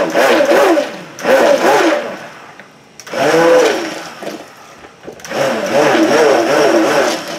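Handheld stick blender (immersion blender) switched on and off in four short bursts, whirring and wavering in pitch as it churns a container of water to rinse soap batter off its blades. The last burst is the longest, about two seconds.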